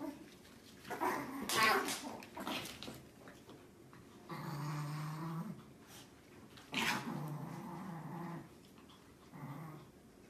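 A pet growling low in three spells, the middle one the longest, after a couple of short rough outbursts in the first few seconds.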